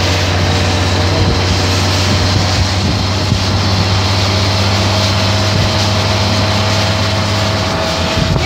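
Steady engine drone and road and wind noise of a car driving along; the deep hum eases near the end.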